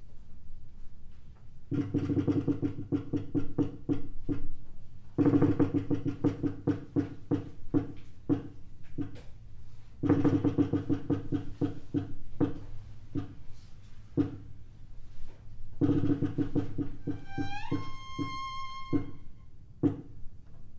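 Chamber ensemble of violin, cello, piano and percussion playing: four bursts of rapid rattling strokes, each fading away, then near the end a high note that slides upward and is held.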